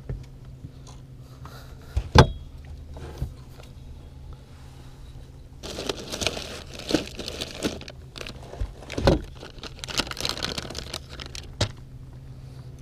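Hands rummaging through plastic bait bags in a boat's storage compartment, a crinkly rustle with small knocks from about six seconds in. A single sharp knock about two seconds in is the loudest sound, over a low steady hum.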